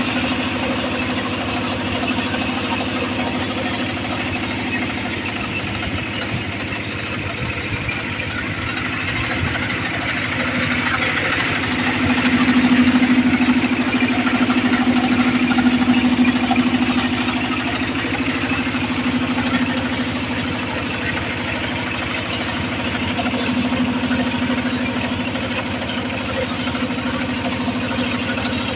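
Homemade engine-driven circular sawmill running with a steady mechanical hum that grows louder for several seconds in the middle.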